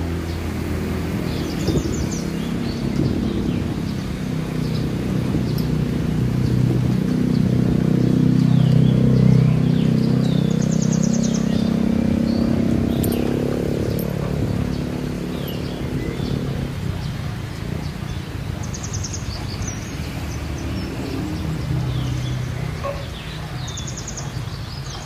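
Birds chirping and trilling in short calls over a rice paddy, above a louder low drone that swells to its loudest about halfway through and then fades.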